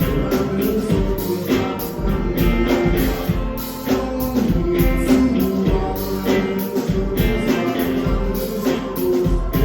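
Live rock band music with a steady beat.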